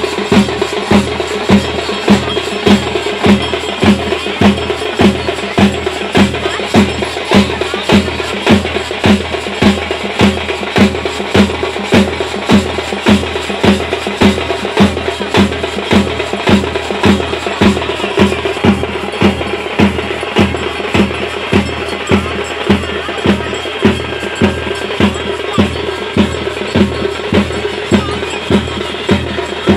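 Drums struck in a steady, even beat, a little under two strokes a second, over a continuous din of other sound.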